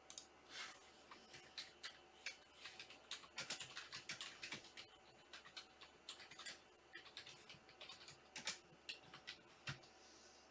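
Faint, irregular clicking and tapping of typing on a computer keyboard, in quick runs with short pauses.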